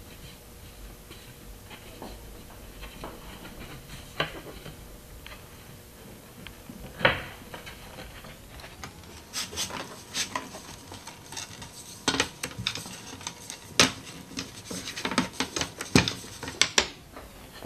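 Wooden door-frame rails, stiles and a lattice panel clicking and knocking against each other as they are handled and fitted together on a bench. The clicks come one at a time at first, then quicker and closer together in the second half.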